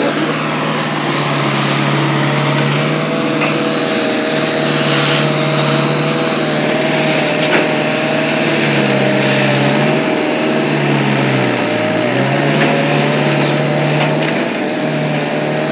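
Engine of a wheeled grapple log loader running under load while the boom works. Its speed rises and falls, dropping several times and sagging lowest about twelve seconds in before picking back up.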